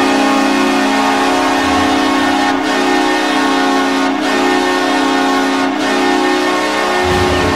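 Hockey goal horn sounding one long, steady blast. Near the end a low bass beat comes in as the goal song starts.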